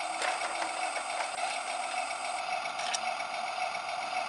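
Tractor engine running steadily at an even pitch, with a few faint clicks over it.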